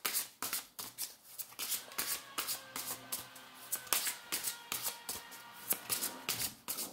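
A tarot deck being shuffled by hand: a quick, uneven run of crisp card-on-card riffles and slaps, several a second. Faint steady tones sit underneath through the middle.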